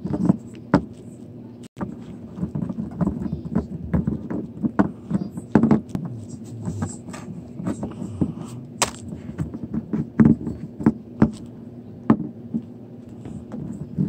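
Small plastic Littlest Pet Shop figurines handled and set down on a tabletop: irregular light clicks and knocks, over a steady low hum.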